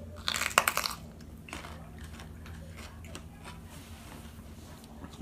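A crunchy bite into a raw jalapeño pepper in the first second, followed by quieter chewing.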